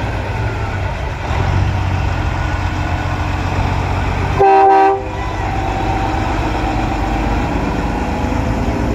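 Diesel semi-trucks rumbling past, with one loud half-second blast from a truck's air horn about four and a half seconds in.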